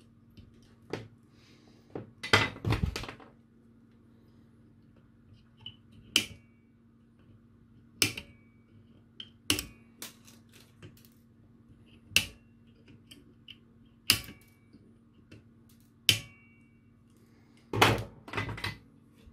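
Sharp clicks and taps of hand tools on a soldering bench, roughly every two seconds, with short clusters of several quick taps near the start and near the end; a few are followed by a brief high ring. A faint steady hum runs underneath.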